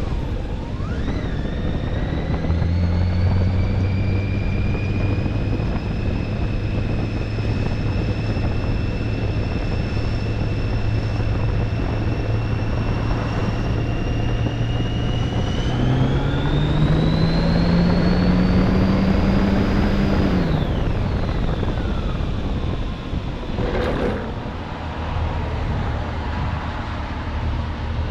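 Motorcycle on the move: a steady engine drone with a thin high whine over it, rising in pitch about halfway through as it speeds up, then dropping back a few seconds later.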